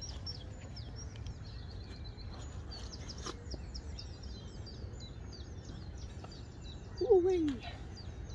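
Small songbirds chirping and singing continuously over a steady low rumble. About seven seconds in, a brief loud human voice-like sound falls in pitch.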